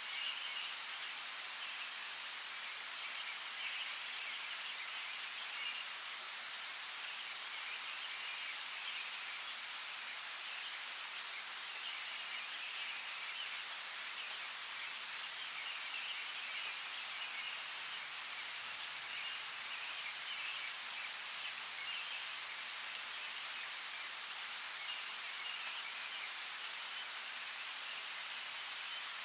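Steady rain falling, with a few louder, sharper drops striking close by. A thin, flickering chirping of birds runs underneath the rain.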